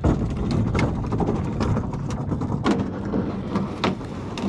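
Plastic Sportyak 245 boat being pushed and rolled into a pickup truck bed: a continuous low rumble of the hull moving over the truck, with irregular knocks and clicks of plastic.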